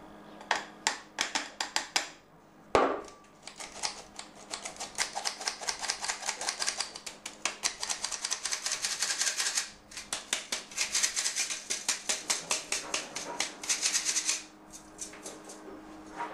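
Handheld metal flour sifter being worked over a glass bowl, its mechanism clicking rapidly, several clicks a second, in long runs with short breaks, as cake flour is sifted. One louder knock comes a little under three seconds in.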